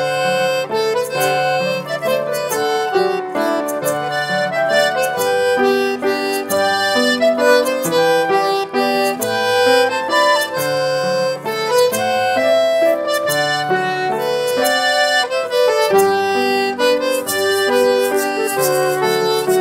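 Live folk dance band playing an instrumental tune on button accordion, fiddle, flute and piano, the accordion's sustained reedy chords carrying through.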